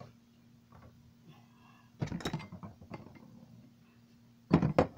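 Two short bursts of clattering and rattling handling noise, one about two seconds in and a louder one near the end, over a faint steady low hum.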